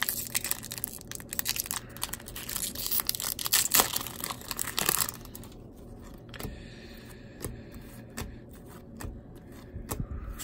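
A shiny foil baseball-card pack wrapper being torn open and crinkled for about the first five seconds, then sparse light clicks of stiff cardboard trading cards being slid and flipped one behind another.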